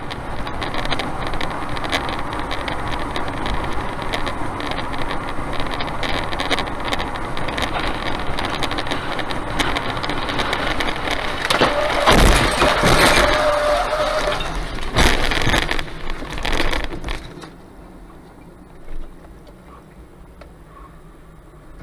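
Steady road and wind noise inside a car moving on a highway, picked up by a dashcam. About twelve seconds in come loud crashing impacts as a Tu-204 airliner that has overrun the runway breaks up beside the road, with a short steady tone, and further crashes about three and four seconds later. After that the noise falls to a low hum.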